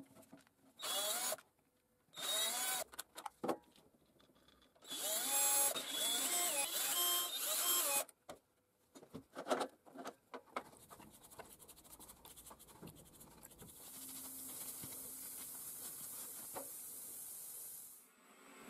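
Cordless drill-driver running in short bursts, its motor whine rising and falling in pitch as it drives the screws out of an old angle grinder's gear housing; the longest run is about 5 to 8 seconds in. After it come lighter metal clicks from handling the grinder parts, and a steady quieter hiss near the end.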